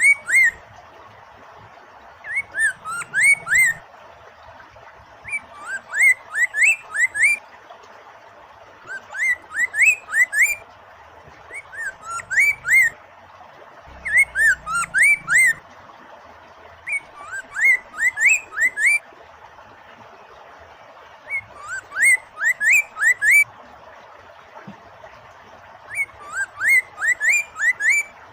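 Poksay mandarin (a laughingthrush) singing phrases of four to six quick upslurred whistles, about one phrase every three seconds, over a steady hiss of flowing water.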